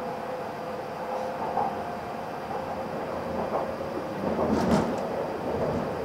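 E7 series Shinkansen pulling out of the station, heard from inside the passenger car: a steady running rumble with a faint steady whine. About four and a half seconds in comes a louder clatter with sharp clicks.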